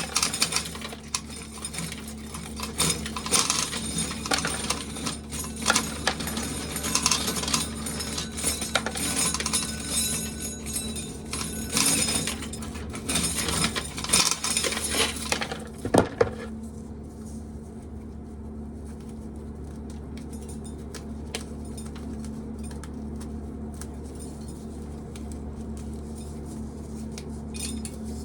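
Corn sheller at work, with kernels rattling and clinking into a metal pail for about sixteen seconds. The rattle then stops abruptly, leaving a steady hum with a few scattered clicks.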